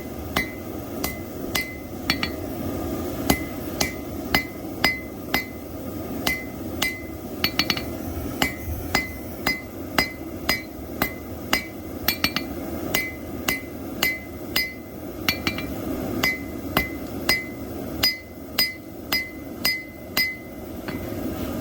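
Blacksmith's 2.5-pound straight-peen hammer striking hot plow-disc steel on an anvil, steady blows about two a second, each with a short metallic ring, flattening and drawing out the stem (tang) of a chef's knife. A steady low rush runs underneath.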